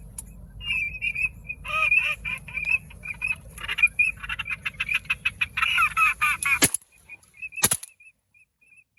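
Ducks calling in a rapid, busy run of short repeated calls, with a low rumble under them that cuts off abruptly. A couple of sharp clicks follow near the end.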